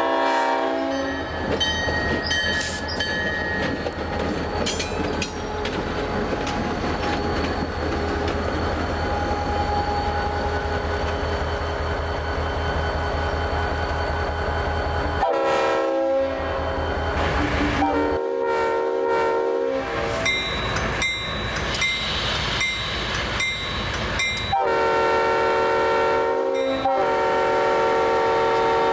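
Leslie five-chime locomotive air horn (RS-5T series) sounding a chord that cuts off just after the start. A diesel locomotive engine runs with a steady low rumble for about the next fourteen seconds. Then the horn sounds again in a series of blasts, short and broken at first, with longer ones near the end.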